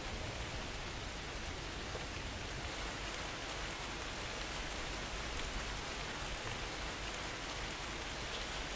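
Steady rain, an even hiss with no distinct drops.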